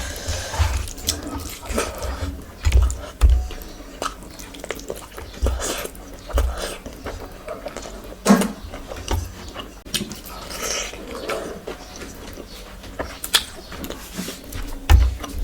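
Close-miked eating sounds: wet chewing, lip smacks and mouth clicks from mouthfuls of curry and rice, with irregular low thumps.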